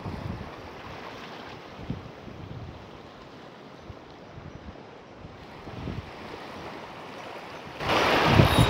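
Wind buffeting the microphone over moving estuary water, in low gusts. Near the end the noise jumps suddenly much louder.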